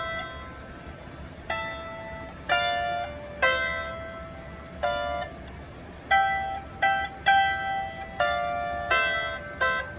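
Lyre harp plucked slowly and unevenly, about a dozen notes, each ringing out and fading.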